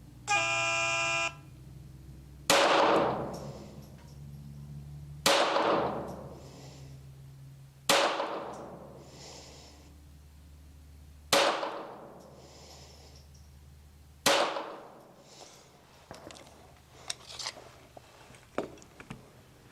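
A short pitched start tone sounds, then a CZ 75 Kadet .22 LR pistol fires five single shots about three seconds apart in a timed-fire string, each shot ringing out and fading. A few faint clicks follow near the end.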